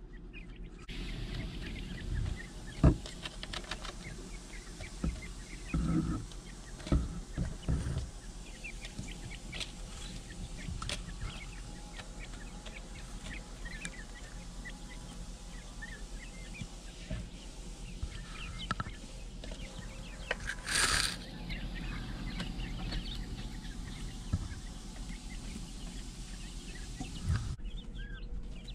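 Tuxedo quail chicks giving short peeps and chirps as they move about the brooder, with several sharp knocks close to the microphone in the first few seconds and a brief loud rustle about two-thirds of the way through. A low steady hum runs underneath.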